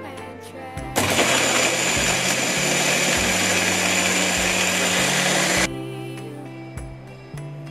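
Magic Bullet personal blender running for about four and a half seconds, puréeing a thick cooked tomato gravy. It starts and stops abruptly, over soft background music.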